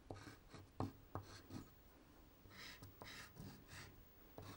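Faint scratching of a soft pastel stick rubbed across paper: a few light taps early, then short scratchy strokes about halfway through.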